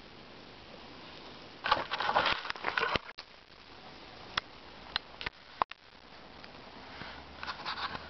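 Crackling rustle of dry leaves and twigs on the forest floor, in two loud clusters, one early and one near the end, with a few single sharp clicks between them.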